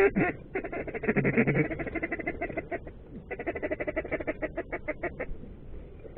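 Mallard-style quacking in two fast runs of short quacks, about ten a second, the second run ending about five seconds in: the feeding-chuckle chatter used to bring mallards in.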